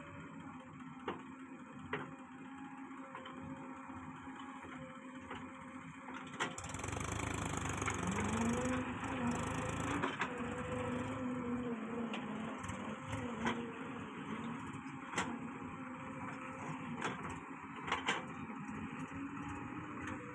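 Diesel engines of a JCB 3DX backhoe loader and a farm tractor running. About six and a half seconds in the engine noise grows louder, and its pitch rises and wavers as the machines work under load. Sharp knocks come now and then.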